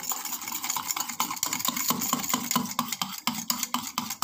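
Wire whisk beating curd and powdered sugar in a steel bowl, the wires clicking and scraping against the metal in a quick, steady rhythm of several strokes a second, mixing until the sugar dissolves.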